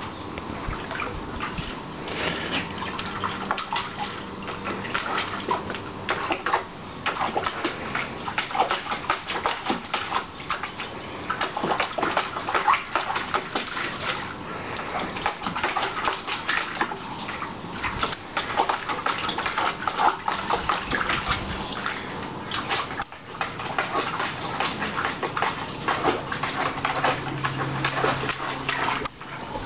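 A Staffordshire bull terrier pawing and splashing in a shallow plastic paddling pool: continuous irregular sloshing and splashing of water.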